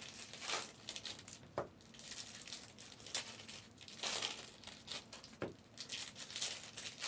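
Trading-card pack wrappers crinkling and tearing as packs are ripped open and cards handled, in a series of short, irregular rustles.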